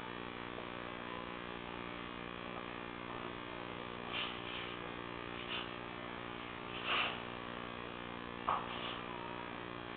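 Steady electrical hum with a few brief faint clicks and scuffs scattered through it; the loudest comes about seven seconds in, and a sharp click comes a moment after eight seconds.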